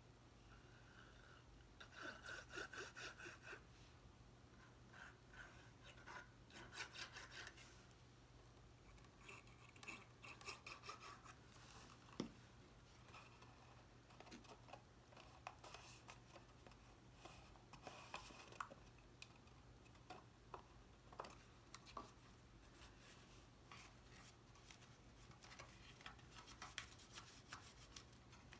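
Faint rubbing and scraping of cardstock being handled, folded and pressed together by hand, in a few short bouts of quick strokes with scattered light taps and clicks between.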